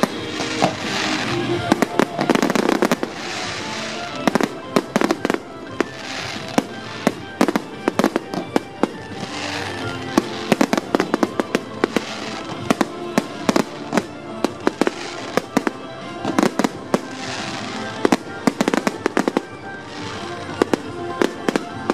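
Fireworks display: shells bursting in many sharp bangs and crackles at irregular intervals, with music playing underneath.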